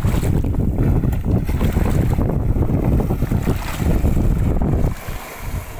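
Heavy splashing and churning water as a hooked giant stingray thrashes at the surface beside a small boat, with wind buffeting the microphone. The noise eases off sharply about five seconds in.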